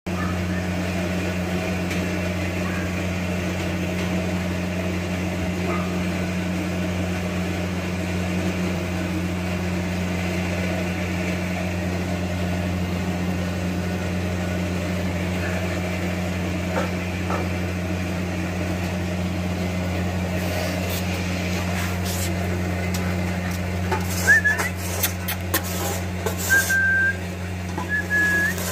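A steady low hum that never changes. In the last several seconds, scattered clicks and a few short, high-pitched squeaks come through over it.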